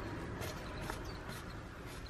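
Faint farmyard background: a few short, high bird chirps and several light clicks over a steady hiss.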